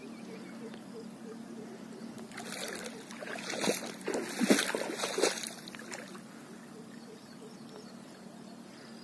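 Muddy floodwater splashing and sloshing in a run of uneven strokes lasting about three and a half seconds, starting a little over two seconds in, over a faint steady hum.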